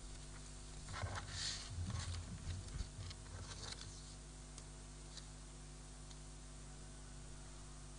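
Rustling and a few light knocks of handling noise picked up by a lectern microphone as someone gathers things at the lectern, over a steady low electrical hum. The handling stops about four seconds in, leaving only the hum.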